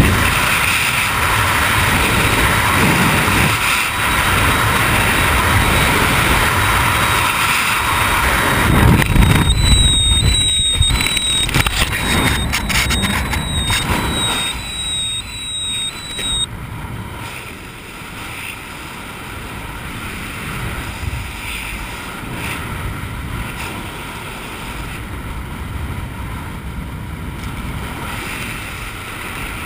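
Wind rushing over a head-mounted camera's microphone while descending under an open parachute, loud at first and easing to a softer rush after about 17 seconds. About ten to sixteen seconds in, a run of knocks and rustles as a hand handles the canopy fabric near the camera.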